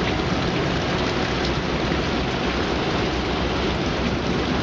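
Heavy rain falling steadily, an even rush of water.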